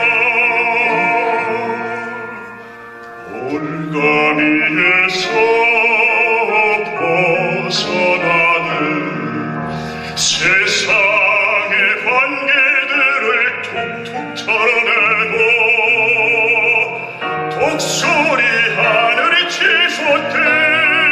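A baritone sings a Korean art song in full operatic voice with wide vibrato. Near the start the voice eases off briefly between phrases, then comes back loud.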